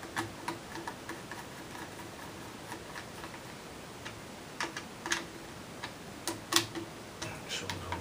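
Small screwdriver driving screws into the cooling fan of an Acer Revo RL100 mini PC: irregular light metallic clicks and ticks, with the sharpest ones between about five and seven seconds in.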